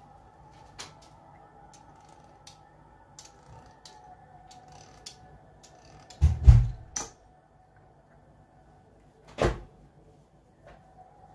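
Knocks and thuds of a metal pastry wheel and hands on a wooden cutting board during dough work: a cluster of bumps about six seconds in, then a single sharp knock about three seconds later as the wheel is set down.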